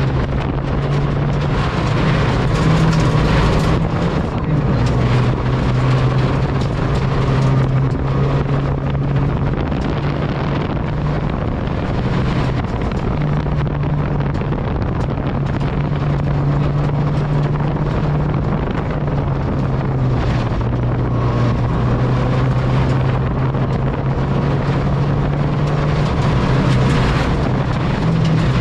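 Ford Fiesta ST rally car's engine running hard at speed, heard inside the cabin, its pitch stepping up and down several times. Gravel and tyre noise hiss steadily underneath.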